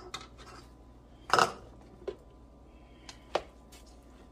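Light knocks and clinks of kitchen utensils as a slotted spoon is taken up and stirring begins in a stockpot of chicken and vegetables; about five short knocks, the loudest about a second and a half in.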